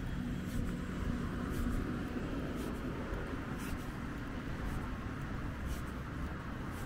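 Outdoor city ambience: a steady low rumble of distant traffic, with a faint short click about once a second.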